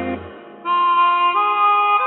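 Early-1960s pop ballad played through a narrow, AM-radio-style sound with the treble cut off. A strummed chord dies away, then about two-thirds of a second in a held lead melody line comes in over it, moving to a new note about halfway through.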